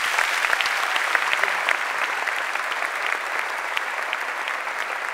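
Large audience applauding steadily, many hands clapping together.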